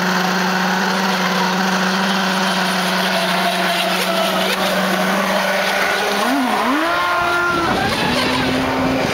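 Radio-controlled model powerboat's motor running flat out on the water with a steady note; about six seconds in the pitch dips and climbs again, then holds steady at a higher pitch.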